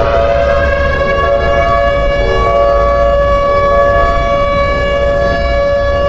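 Emergency-alert siren sounding a loud, steady chord of several held tones over a low rumble, part of a made-up national warning broadcast.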